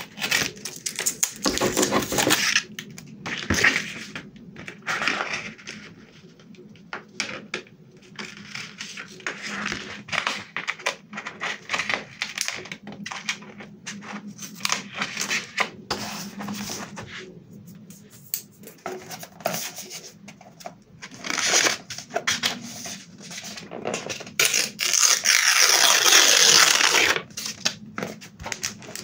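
Small ornate metal scissors snipping paper in short cuts, mixed with the rustle and crinkle of paper, plastic film and foil being handled. Near the end comes a longer stretch of dense crinkling.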